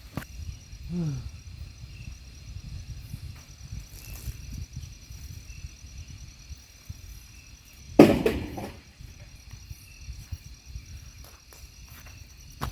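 Insects trilling steadily in the background over a low rumble, with a short falling-pitch sound about a second in and one loud sudden knock about eight seconds in.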